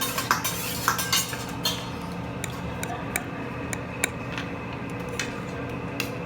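Cutlery and dishes clinking at a meal table: about ten irregular, sharp clinks over a steady background hum.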